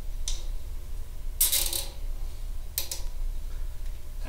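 A zip tie being pulled tight through its locking head, ratcheting in three short zips: a brief one at the start, a longer, louder one about a second and a half in, and a short one near three seconds.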